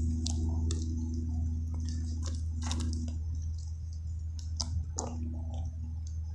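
Scattered scrapes and clicks of a climber's sneakers and hands on tree bark as he works his way up the trunk, over a steady low rumble.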